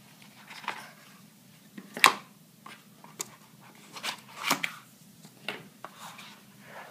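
Small cardboard box and plastic packaging being opened and handled: a string of short clicks, scrapes and rustles, the sharpest about two seconds in.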